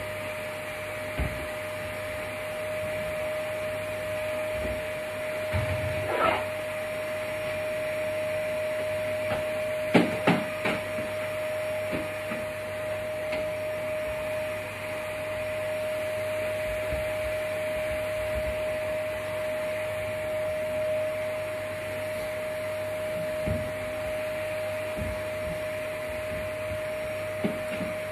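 Vacuum cleaner motor running steadily, a single unchanging whine over a hiss, with a few sharp knocks, the loudest about ten seconds in.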